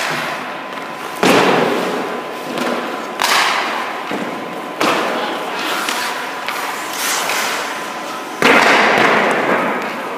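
About five sharp hits, each trailing off in a scraping hiss: ice hockey shots taken at a goalie, pucks and sticks striking pads and boards, with skates scraping the ice.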